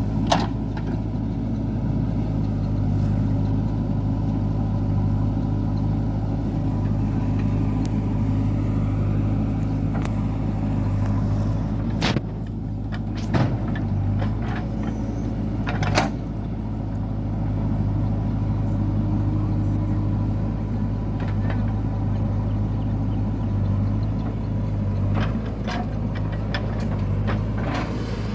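A heavy diesel engine of earth-moving machinery runs at a steady speed, with a few sharp knocks over it.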